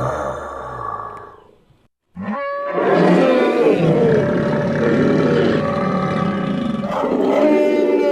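Sound-designed creature roars. A fading growl ends about two seconds in. After a brief silence, a Styracosaurus dinosaur roar begins, built from mixed animal recordings such as elephant, alligator and camel: a long, loud, pitched bellow that wavers in tone.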